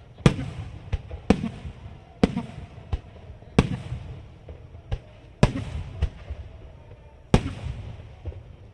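Aerial firework shells bursting in quick succession, about ten sharp bangs at irregular intervals of roughly a second, each followed by a rolling echo.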